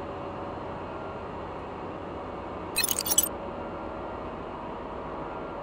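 Steady ship engine-room machinery noise with a few faint steady tones in it. About three seconds in, a brief burst of metallic clinking and jangling.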